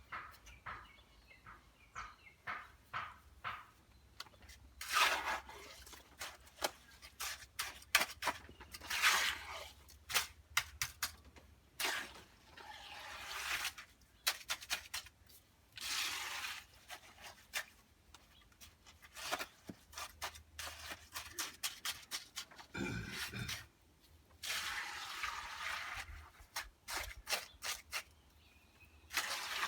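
Hand tools working wet concrete: repeated scraping passes and sharp knocks and clicks, typical of shovelling and spreading a fresh concrete mix.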